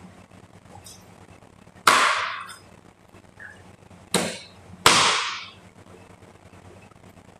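Three hard chops of a large knife through raw chicken onto a plastic cutting board, each a sharp knock that rings out briefly; the first about two seconds in, then two close together near the middle.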